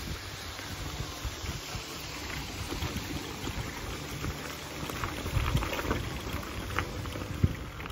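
Bicycle tyres rolling over a trail of dry fallen leaves and gravel: a steady crackling rustle with sharper crackles in the second half.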